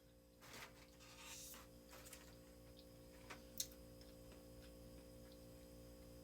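Near silence: room tone with a faint steady hum, a soft regular ticking about three times a second, and a few small clicks and rustles, the sharpest about three and a half seconds in.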